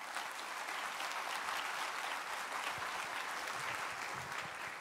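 Audience applauding, a steady patter of many hands clapping that tapers off near the end.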